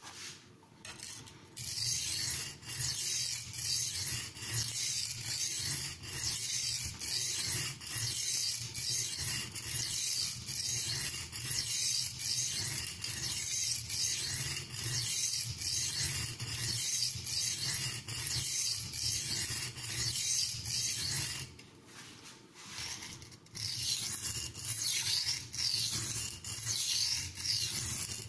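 Carbon-steel knife blade stroked back and forth on the coarse side of a Norton India oilstone: an even run of rasping strokes, about one and a half a second. The strokes stop for about two seconds near the end, then start again.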